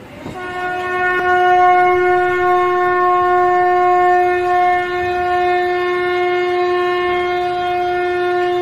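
Conch shell (shankh) blown as a shankhnad, the ritual conch call: one long, steady, horn-like note that swells over the first second or so and is held.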